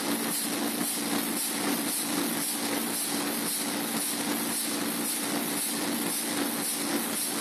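Large 1933 Burmeister & Wain two-stroke diesel engine running steadily: a continuous mechanical din with a low steady hum and faint regular pulsing.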